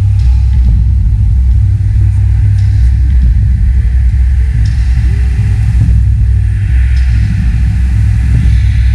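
A loud, steady low rumble from the stage show's sound, thick in the bass with no clear beat, and faint wavering voices above it.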